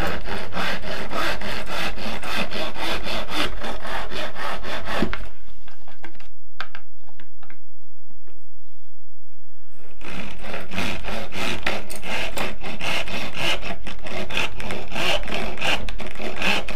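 Hand saw cutting through a piece of fatwood in quick, even back-and-forth strokes. The sawing breaks off about five seconds in, with only a few scattered strokes, and picks up again about ten seconds in.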